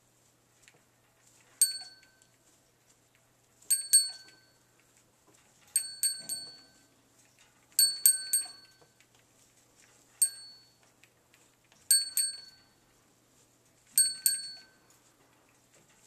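Small metal bell on a parrot toy ringing in bursts of one to three quick strikes, roughly every two seconds, each strike fading out briefly.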